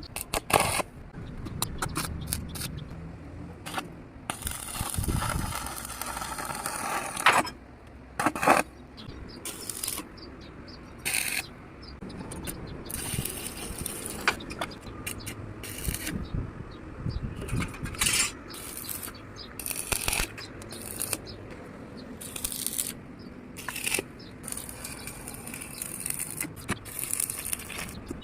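Metal workshop sounds: steel pieces clanking and scraping, with short stretches of hissing noise between many sharp knocks.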